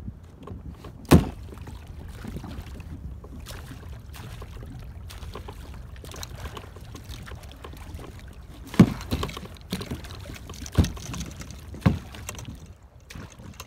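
Water sloshing and gurgling around a small plastic sit-on-top kayak, with a steady low rumble. Four short, sharp knocks stand out, one about a second in and three close together near the end.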